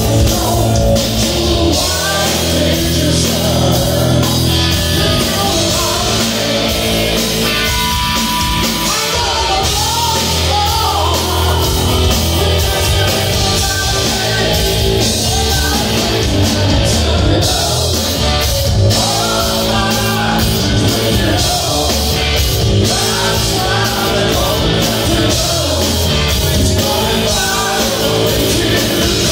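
A live rock band plays at full volume: distorted electric guitar, electric bass and a drum kit, with a male lead vocal singing over them.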